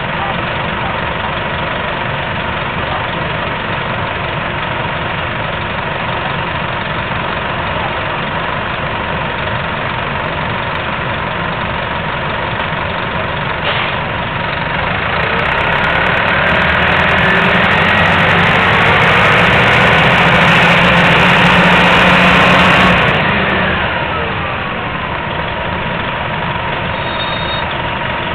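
Nova RTS transit bus's diesel engine idling, a click about halfway through, then the engine pulling hard with a rising whine for about eight seconds. The power cuts off suddenly and the pitch falls away as the bus slows, then it settles back to a steady run.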